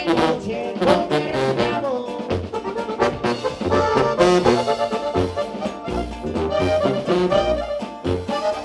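Live norteño band playing an instrumental passage: a tuba plays a bouncing bass line of short repeated notes under the accordion's melody.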